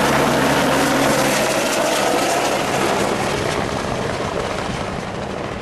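Helicopter engine and rotor running steadily, slowly getting quieter.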